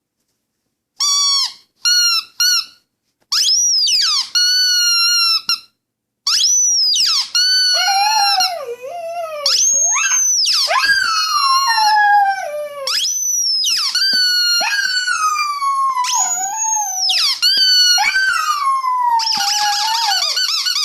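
A few short squeaks of a squeaky toy, then a Chinese Crested dog howling in long, high, wavering calls that slide down in pitch, one after another. The dog is upset by the new toy.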